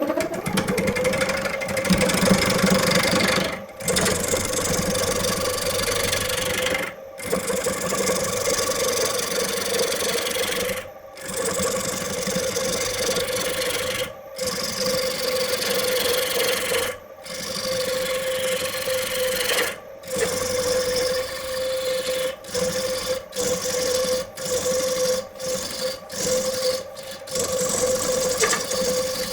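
Wood lathe motor spinning up, then running at a steady pitch while a tool scrapes against the spinning wood. The sound stops and restarts many times in short cut-together stretches.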